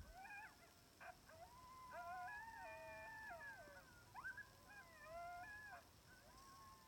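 A pack of timber wolves howling in chorus, faint and distant: several long howls overlap at different pitches, some gliding up or down, with short quick rising calls among them.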